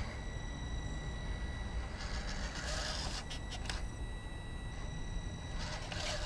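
Small RC crawler running, with a thin steady whine and a low rumble; two bursts of scraping hiss, one about two seconds in lasting nearly two seconds and a shorter one near the end.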